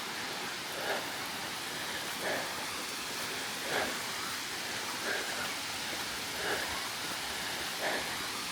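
Steady rushing of a waterfall, the plunge of Munising Falls, with soft short sounds repeating about every second and a half.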